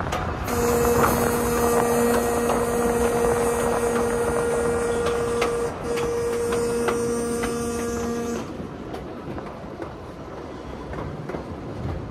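Diesel locomotive horn sounding one long steady blast, a brief break, then a shorter blast, over the running noise and wheel clicks of a train on the rails. After the horn stops, the quieter rail noise and clicks carry on.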